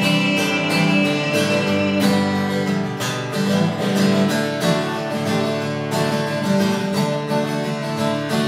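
Acoustic guitar strummed alone in an instrumental break between sung verses, chords struck at an even pace.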